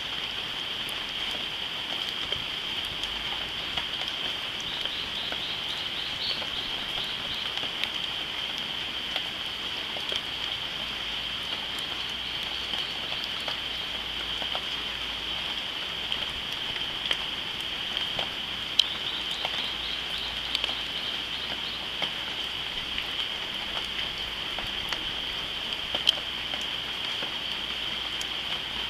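Tropical jungle ambience: a steady high-pitched insect drone over a faint hiss, with scattered sharp ticks. Two brief runs of rapid chirps come through, about five seconds in and again near twenty seconds.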